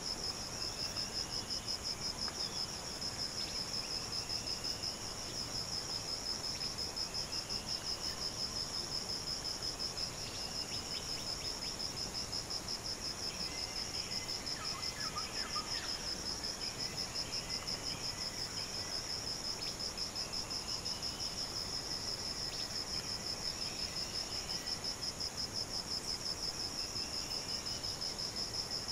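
A rainforest insect chorus: a high, steady trill pulsing rapidly throughout. Beneath it, faint short rising whistles repeat every two seconds or so.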